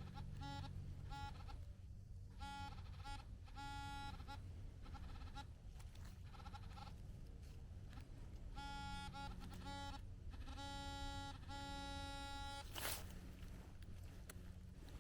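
Metal detector target tones sounding over a buried metal target: a run of short, buzzy beeps at one pitch, then longer held tones, with a sharp knock about 13 seconds in.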